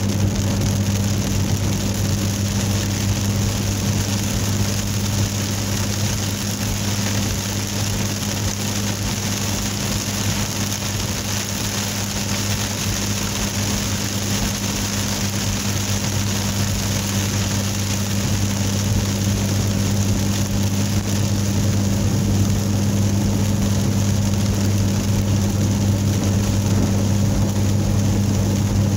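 Car driving at a steady speed, heard from inside the cabin: a constant low engine and road hum under an even hiss of tyres on a wet road in the rain.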